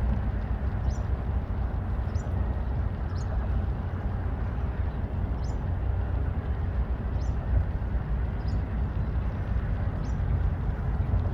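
Outdoor ambience: a steady low rumble, with a small bird repeating a short high chirp about once a second.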